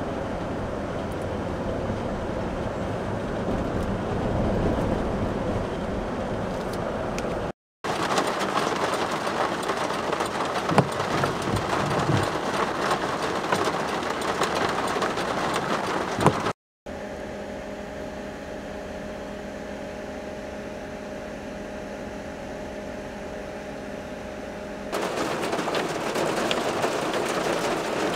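Road and engine noise from a vehicle driving, then rain with a few sharp drop ticks, a quieter steady hum, and finally heavy rain with traffic hissing past on a wet highway.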